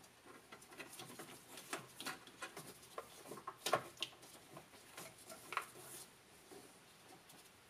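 Small irregular clicks and taps of metal hardware and a hand tool as a loose wire terminal nut is tightened on a golf cart's forward/reverse switch; the clicking stops about six seconds in.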